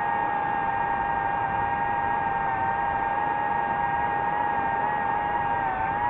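DJI FPV drone's motors and propellers whining steadily in flight, heard from on board the drone over a hiss, the pitch dipping slightly near the end.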